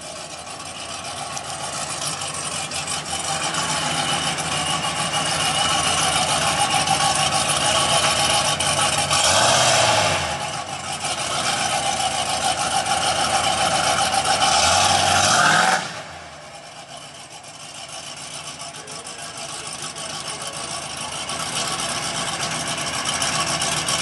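Squarebody Chevrolet pickup's engine running as the truck drives past, growing louder as it approaches. It is revved twice, about ten seconds in and again about fifteen seconds in, and the second rev cuts off suddenly. The engine then runs quieter as the truck pulls away.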